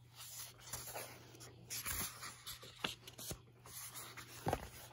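Book pages being turned and handled: soft paper rustling with light taps and clicks.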